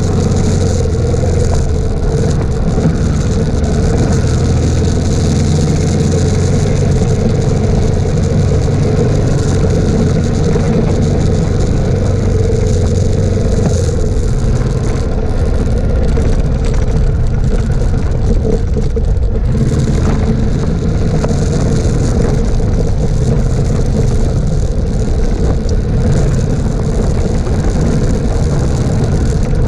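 Suzuki DR650's single-cylinder four-stroke engine running steadily under way on a dirt track, with wind and tyre noise over the bike-mounted camera's microphone.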